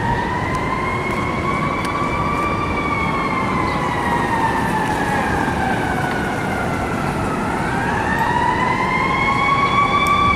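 A fire apparatus's Federal Signal Q mechanical siren winding slowly up and down: it rises for the first couple of seconds, falls off over the next five, then winds up again and grows louder near the end. Steady road and engine noise runs underneath.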